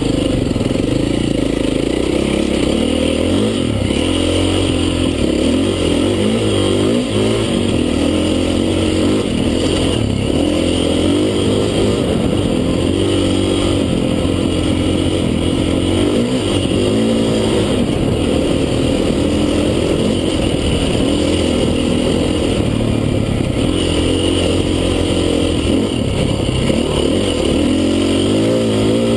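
KTM 530 EXC trail bike's single-cylinder four-stroke engine running under way on a dirt trail, its revs rising and falling again and again as the throttle is worked.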